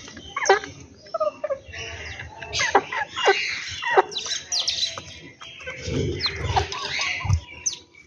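Chickens clucking and calling while feeding, a string of short calls that fall sharply in pitch, with chirping birds mixed in.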